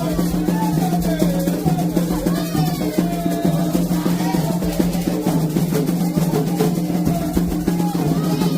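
Candomblé ritual drumming, dense and continuous, over a steady low held tone. Above it a pitched voice slides up and down in repeated glides.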